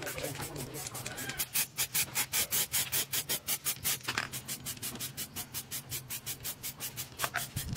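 Aerosol spray-paint can spraying in quick repeated short hisses, about five a second.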